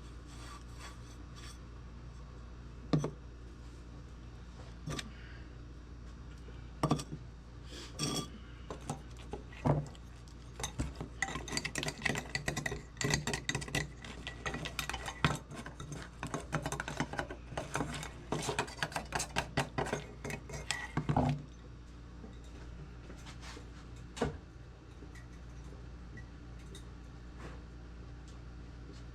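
Scraping and clinking of a tool working inside an old lantern as it is cleaned out: a few separate knocks, then about ten seconds of quick, dense scraping strokes, then a single knock.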